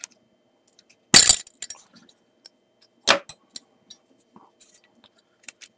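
Kiev-17 SLR camera's shutter and mirror firing: a sharp mechanical clack about a second in and another about three seconds in, with faint handling clicks between. The shutter works.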